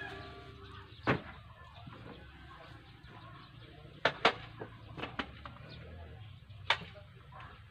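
Several sharp, irregular knocks of hard objects being handled or tapped during work on a sink frame: one about a second in, pairs near four and five seconds, and a last one near the end.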